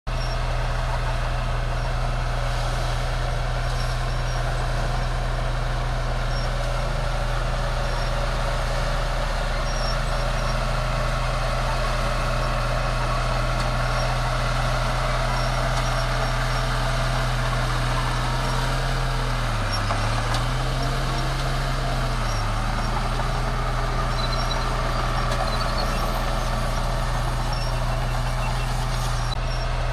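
Bulldozer's diesel engine running steadily under load. Its note dips briefly twice about two-thirds of the way through.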